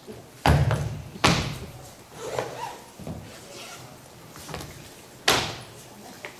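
Knocks and clunks of a wheeled suitcase being handled and opened, with three sharp knocks: a heavy thud about half a second in, another just over a second in, and one about five seconds in. Smaller bumps and rustles fall between them.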